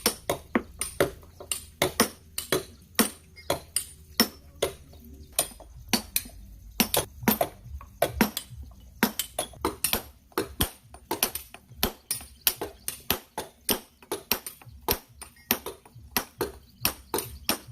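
Repeated sharp knocks or taps at an uneven pace of about two or three a second, over a faint low hum.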